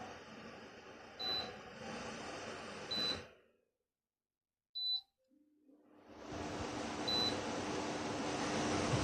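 Electric fan blowing, with short high-pitched beeps from its touch controls. About three seconds in the airflow dies away to silence; a beep sounds, and the airflow builds back up with a steady low hum as the fan starts again.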